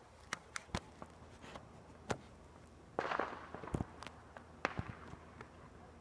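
Small firecrackers going off: scattered sharp pops, with a burst of rapid crackling about three seconds in followed by a few more pops.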